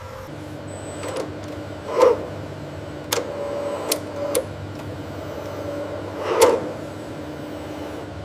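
Mechanical sound effects of a robot joint's electric actuator being driven: a steady low hum with a whirring servo whine, several sharp clicks in the middle, and two louder swells, about two seconds in and just past six seconds.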